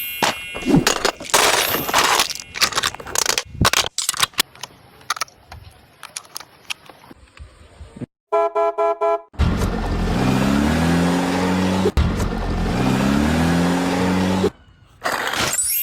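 Choppy, rapidly cut car sound effects: clattering noise, a short pitched horn-like tone about halfway through, then an engine revving in repeated rising sweeps.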